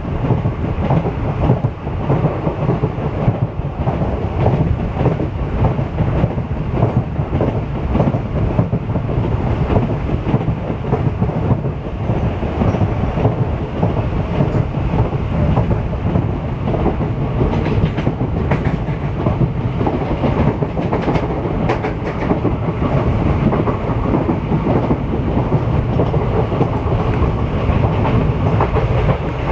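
Passenger train running on the track: a steady, loud low rumble with wheels clattering over rail joints.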